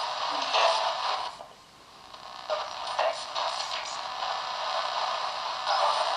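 Ghost box, a modified AM radio sweeping through stations, giving choppy, stuttering bursts of static and broken radio fragments through a small plug-in speaker. The noise drops away briefly about a second and a half in, then comes back in short bursts.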